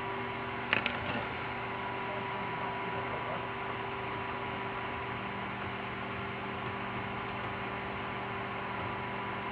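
Steady electrical hum with hiss: several steady tones over an even noise, with a short click about a second in.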